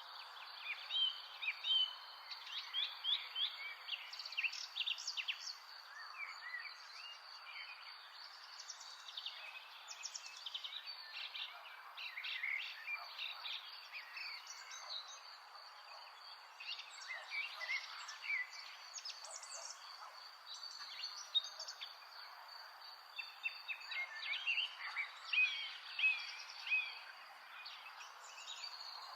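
Several birds chirping and trilling in quick clusters, busiest early on and near the end, over one steady high insect drone and a constant soft hiss of outdoor ambience.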